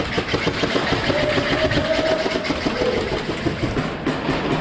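Rapid airsoft gunfire: electric airsoft rifles firing on full auto, a fast, dense rattle of shots that runs without a break.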